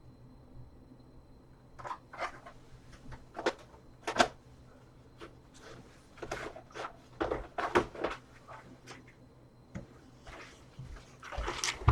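Rummaging among small hard parts: a string of irregular clicks, rattles and knocks that starts about two seconds in.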